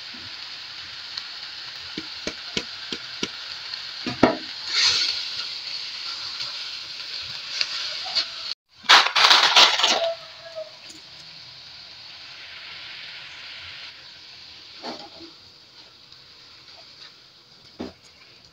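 Vegetables and egg sizzling in a hot wok as they are stir-fried with a silicone spatula, with light taps and scrapes of the spatula against the pan. The sizzle flares loudly for about a second, about nine seconds in, right after a brief break, then dies down gradually.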